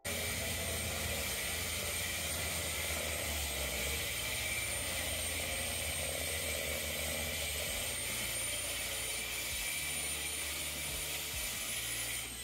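Masonry power tool running steadily as it bores into a brick wall near the floor, with a thin high motor whine that drifts slowly upward.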